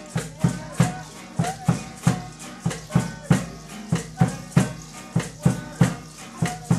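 Live folk music: a strummed acoustic guitar over a hand drum beating a steady pulse of about three strokes a second.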